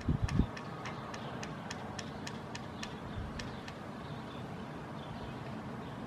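House sparrow giving a steady run of short chirps, about four a second, fading out a little past halfway. A few low thumps come right at the start, over a steady low background rumble.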